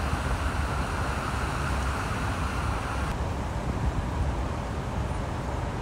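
Road traffic moving along a flooded street: a steady low rumble of engines with tyres hissing through standing water. The hiss thins out suddenly about three seconds in.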